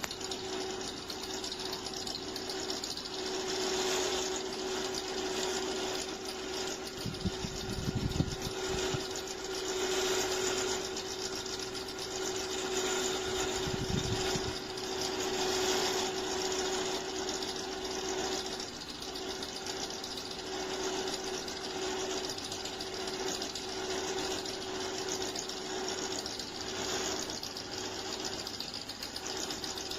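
Cecotec EnergySilence 790 Skyline tower fan running: a steady rush of blown air over a steady motor hum, with a couple of low bumps about eight and fourteen seconds in.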